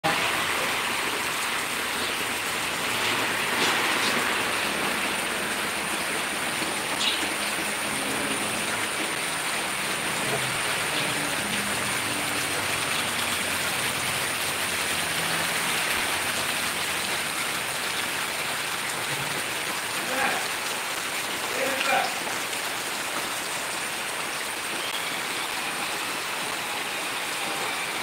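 Heavy rain falling steadily, a dense even hiss, with a few brief louder knocks or splashes scattered through it.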